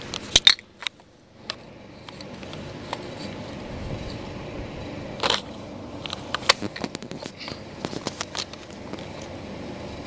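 Hugger four-blade ceiling fan running with a steady whir, under irregular sharp clicks and knocks from handling the camera. The steady sound drops away briefly about a second in, then returns.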